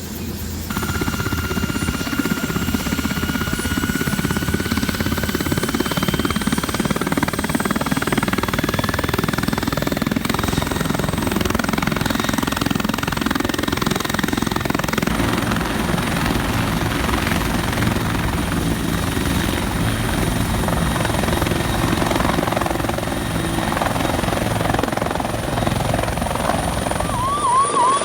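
Helicopter running close by: steady rotor and engine noise, with a turbine whine that rises slowly in pitch over the first several seconds.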